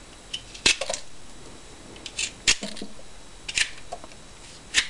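Vegetable peeler scraping and cutting into a hard rutabaga in short, irregular strokes, about half a dozen of them.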